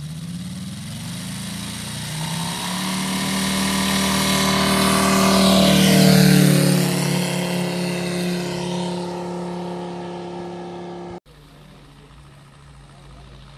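Large radio-controlled model tow plane's engine running at full throttle on its take-off run, growing louder and dropping in pitch as it passes close by about six seconds in, then fading away. After a sudden cut near the end, a more distant model aircraft engine runs steadily.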